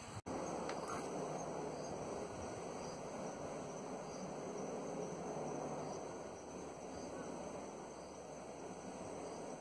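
Faint, steady drone of a distant helicopter, swelling and easing slowly.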